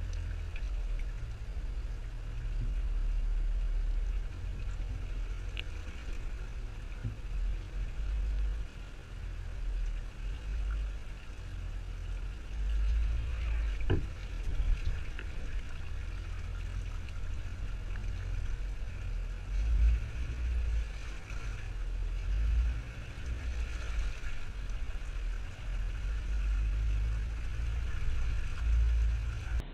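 A Jeep driving off-road, a low rumble that swells and fades with some road and wind hiss, and a single sharp knock about halfway through.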